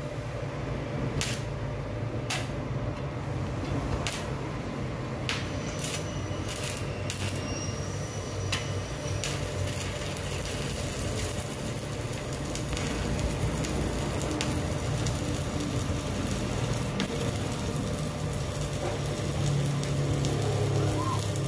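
Stick welding arc from a Classic ARC 200E inverter welder burning a 2.5 mm electrode at about 103 A: a steady crackle and hiss, with sharp cracks during the first nine seconds or so.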